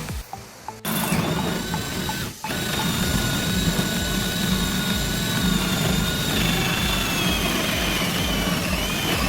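An electric power tool's motor running steadily with a high whine, starting about a second in and breaking off briefly once.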